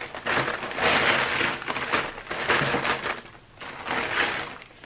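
Clear plastic packaging crinkling and rustling as sealed craft-kit packs are handled and shuffled, with a short lull about three and a half seconds in.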